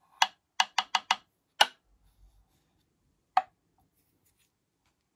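Sharp metallic taps of a hand tool's tip against metal screws and frame parts of an electric unicycle: five quick taps in about a second, another soon after, and a last one a couple of seconds later.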